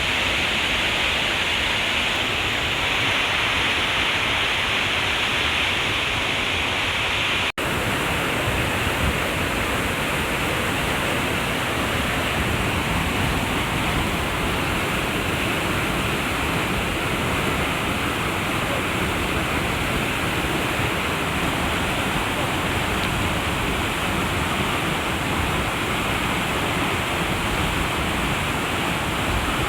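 Steady rush of water from a waterfall or mountain stream. About a quarter of the way in it cuts out for an instant, then comes back lower and fuller.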